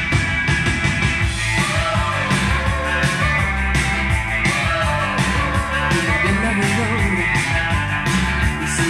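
Rock music with electric guitar and a singing voice, played from a vinyl record on a Sanyo TP 1020 direct-drive turntable with an Audio-Technica AT-VM95C cartridge, heard through Infinity loudspeakers in the room.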